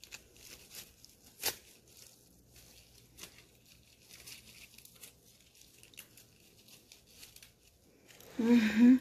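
Soft rustling and crinkling as a small object is handled in the hands, with a sharp click about a second and a half in. Near the end there is a brief, much louder low-pitched noise.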